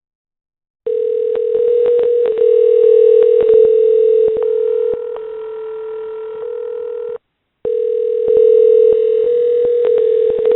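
A steady, loud telephone dial tone over a phone line, with scattered clicks on the line. It starts about a second in, breaks off briefly near the middle, then resumes.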